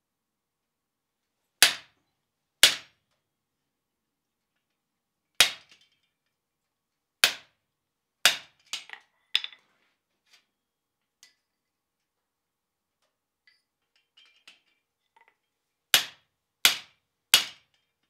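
Hand hammer striking the top die of a guillotine tool set on the anvil, shouldering a hot iron bar. About eight sharp, irregularly spaced blows, with lighter metal clinks between them in the middle as the bar is repositioned, and a quick run of three blows near the end.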